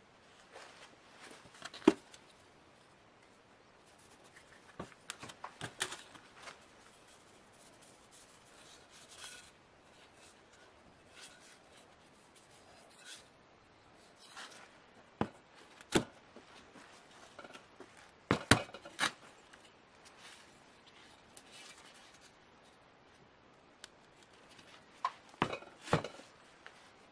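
Workshop hand work on parts: irregular clicks, knocks and short scraping or rubbing sounds, with a few sharper knocks standing out.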